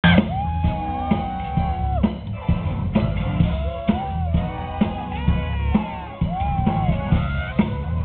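Live band playing: a steady drum-kit beat with bass and guitar under a lead melody of long held notes that bend and glide in pitch.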